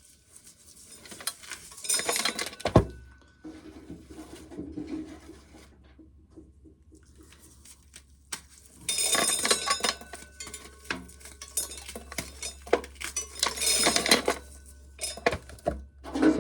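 Bouts of clinking and clattering of hard objects, like dishes and cutlery being handled, in three loud spells about two, nine and thirteen seconds in. A steady low hum starts about three seconds in.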